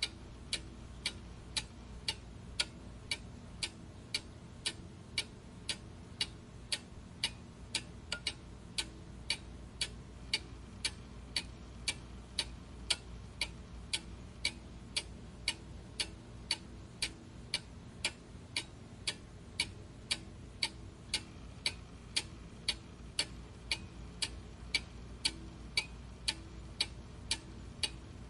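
Steady, even ticking at about two ticks a second, over a faint low hum.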